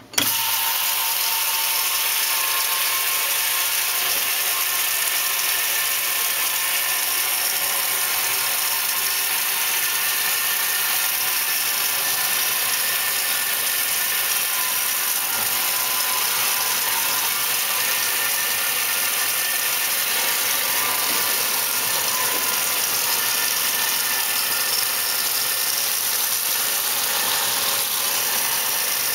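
A 1968 Kenmore 900 series top-loading washer switched on, starting abruptly and then running as a steady hiss, typical of water pouring into the tub as it fills.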